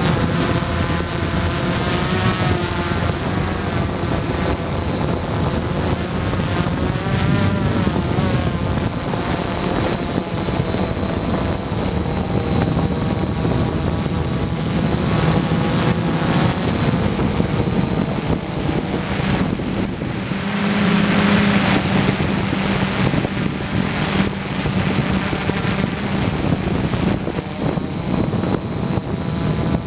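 Gaui 330X quadcopter's brushless electric motors and propellers in flight, heard from the camera carried on the craft: a steady whine of several tones that keep wavering in pitch as the motor speeds change, growing louder for a moment about two-thirds of the way through.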